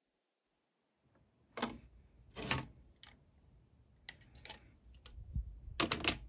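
Hard plastic clicks and knocks of a toy transformation buckle being handled and slotted onto the side of a DX Desire Driver belt. Several separate clicks, starting about a second and a half in, then a quick run of clicks near the end as the buckle seats.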